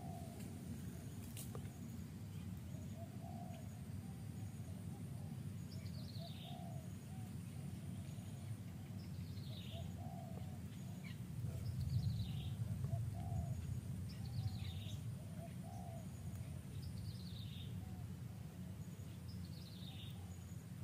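A forest bird repeating a short, falling whistled call about six times, every two to three seconds, over a steady low rumble of outdoor background noise, with softer low calls in between.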